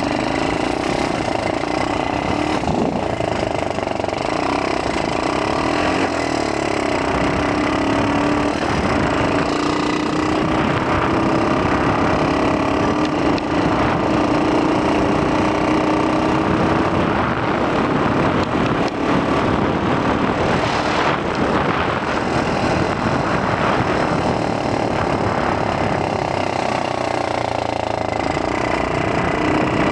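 X18 super pocket bike's small engine running while riding, its pitch drifting slowly up and down with the throttle. Wind noise rushes across the helmet-mounted microphone.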